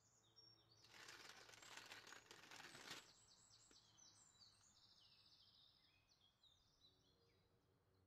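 Mostly quiet, with a faint crackly rustle lasting about two seconds as baked meringue shells are handled on baking paper. This is followed by a run of faint, quick, high bird chirps.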